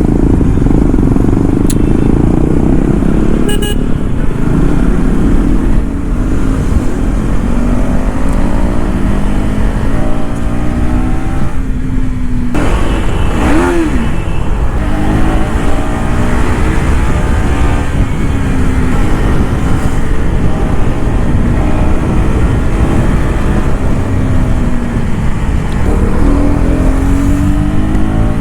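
KTM Duke 250's single-cylinder engine through its stock exhaust, pulling hard while the bike is ridden. The pitch climbs through the revs and drops back at each gear change, many times over, with a short lift-off about twelve seconds in, all over a steady low rumble.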